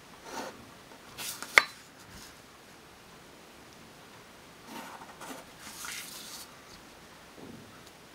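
Pen drawing lines across paper along a plastic ruler: several short scratchy strokes, with a single sharp click about one and a half seconds in.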